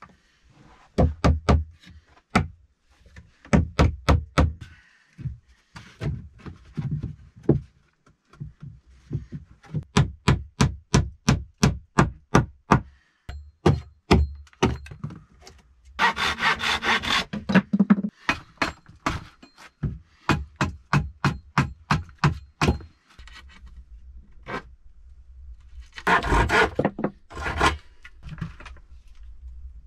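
Hammer driving nails into wooden boards: runs of quick, sharp blows at about three a second, broken by two longer stretches of boards rubbing and scraping as they are handled.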